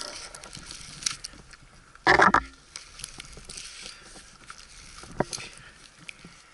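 Tree climber's gloves, rope and gear rubbing and scraping against pine bark, with a loud, short scrape about two seconds in and a few sharp clicks.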